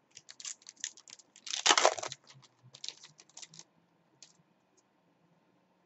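A foil trading-card pack being crinkled and torn open: a quick run of crackles and clicks with one louder rip about a second and a half in, then a few light clicks of the cards being handled.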